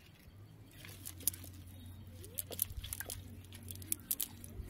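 Rustling and crackling of a nylon fishing net being handled and lifted over dry leaves and mud, with scattered sharp crunches. A low steady hum sits underneath.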